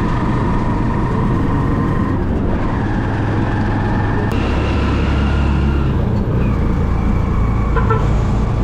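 Motorized tricycle's motorcycle engine running under way, with road rumble; the engine note changes about four seconds in.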